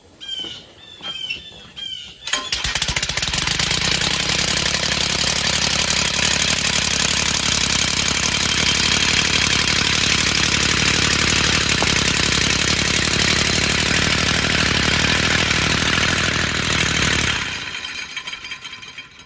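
Home-built three-cylinder compressed-air engine on a lawnmower, run on 150 PSI, starting about two seconds in and running with a loud, fast, even pulsing hiss of exhausting air as it drives off; the sound fades near the end as the mower moves away. A bird chirps several times before it starts.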